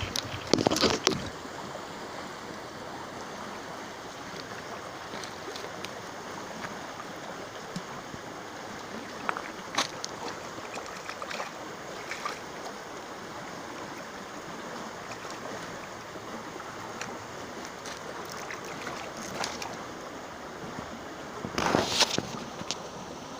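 Steady rushing of river water, with a few short louder knocks or rustles about a second in, twice in the middle and a longer burst near the end.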